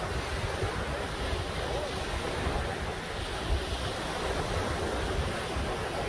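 Small waves breaking and washing up on a sandy beach in a steady surf hiss, with wind buffeting the microphone in uneven low gusts.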